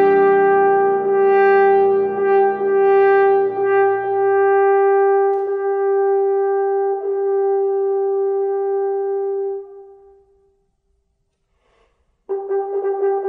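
French horn holding one long note over a piano chord that dies away beneath it. The horn note fades out about ten seconds in, and after a short silence the horn comes in again with new notes near the end.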